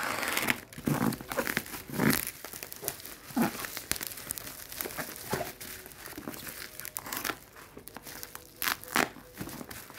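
Black plastic shipping wrap and packing tape being handled and pulled open, crinkling and tearing in irregular crackles and rustles.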